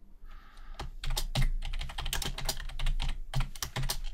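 Computer keyboard typing: a quick, uneven run of keystroke clicks starting about a second in, after a short pause.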